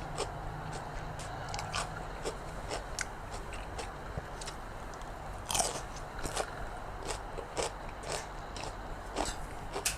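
A person biting and chewing crunchy food close to the microphone, with irregular crisp crunches; raw vegetables dipped in chilli paste are what is being eaten.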